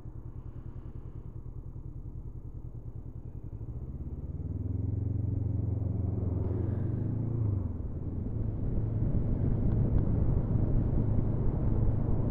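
Honda CB500F's parallel-twin engine ticking over at low revs, then pulling away with the revs rising from about four seconds in, a brief dip at a gear change about seven and a half seconds in, and steady running after that.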